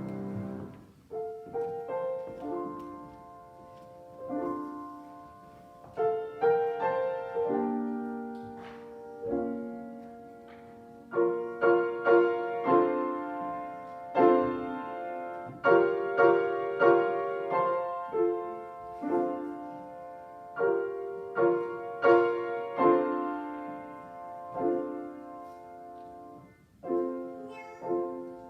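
Solo piano playing slow music, chords struck one after another and left to die away.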